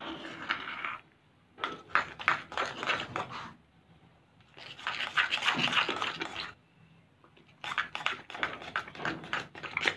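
A spoon stirring a foamy shaving-foam and glue slime mix in a bowl, scraping and clicking in four bursts of quick strokes with short pauses between.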